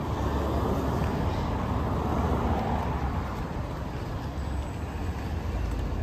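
A car passing on the street alongside, its engine and tyre noise swelling to a peak about two seconds in and then fading, over a steady low rumble of city traffic.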